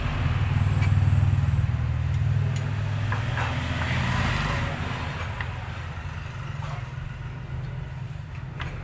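A low engine-like hum swells in the first second or two and then slowly fades, with a few faint taps and clicks of a kitchen knife and metal tongs on a plastic cutting board as grilled pork is sliced.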